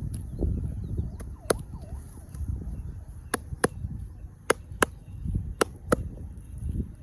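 Sharp hand strikes of a traditional head massage: one crisp slap, then three quick double slaps, each pair about a third of a second apart, over a low rubbing rumble.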